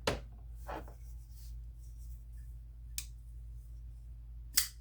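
Kizer Latt Vind Mini folding knife being flipped open and shut by its flipper: sharp clicks of the blade snapping open and closed, loudest at the start and near the end, with a quieter click in between and a brief scrape.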